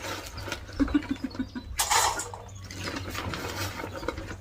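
Dogs eating at their feed bowls: a short rhythmic run of soft chewing or lapping sounds about a second in, then a brief loud clatter or rustle near two seconds in, over a steady low hum.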